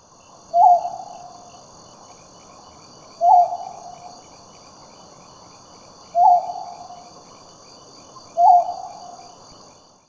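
Serendib scops owl calling: four short, low hoots about two and a half to three seconds apart, each with a fading tail. Underneath runs steady high-pitched insect buzzing and a faster pulsing insect trill.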